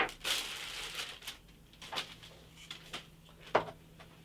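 A plastic bag rustling as bench dogs are taken out of it, then a few light clicks and knocks of plastic bench dogs set down on a hardwood workbench top, the sharpest knock near the end.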